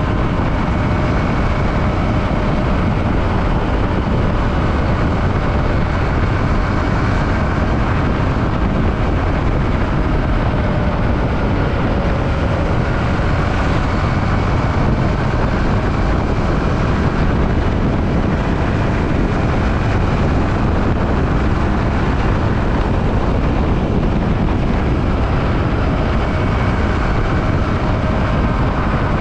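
Yamaha WR155R single-cylinder motorcycle ridden at a steady speed: engine running evenly under a constant rush of wind noise on the microphone.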